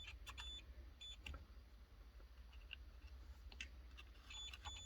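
A multimeter's continuity beeper sounding faintly in short, broken-off beeps, a few quick ones early on and a longer one near the end, with faint clicks of the probes touching. The beep signals an unbroken circuit through the re-soldered speaker wiring.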